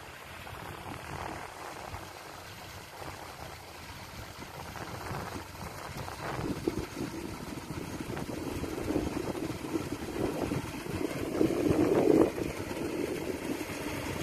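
Engines of a three-engine mud-leveling rig (cào cào) working a flooded rice field, running steadily and growing louder as the machine comes closer.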